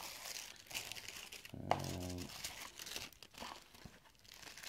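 Clear plastic bags holding electronic kit parts crinkling and rustling as they are handled and laid out, with a short low voiced hum about two seconds in.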